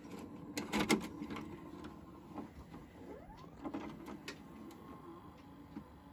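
Front-loading mechanism of a Pacific VHS video recorder taking in a cassette. Loud clicks come as the tape is pushed into the slot, then a motor whirrs with a short rising whine and a few more clicks as the cassette is drawn in and loaded.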